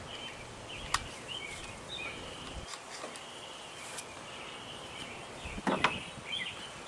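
Birds chirping steadily in the background. Light clicks about a second in and again near the middle, then a louder double knock about two-thirds through, from a speed square and clamps being set against the lumber.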